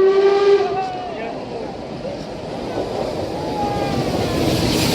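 A train horn holds one steady note that ends just under a second in. The rushing noise of a train then grows steadily louder.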